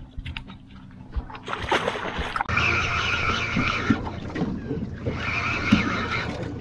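Spinning reel's drag buzzing as a hooked fish pulls line, in two runs: one starting about two and a half seconds in for about a second and a half, another a second later for about a second. A low steady hum runs underneath.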